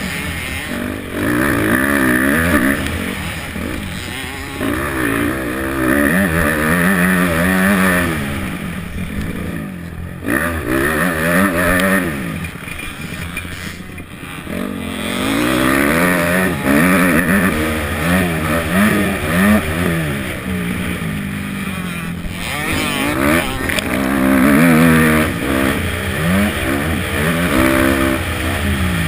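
250cc motocross bike engine revving up and falling back over and over as the rider accelerates, shifts and rolls off around a dirt track, with a rush of wind over a helmet-mounted camera.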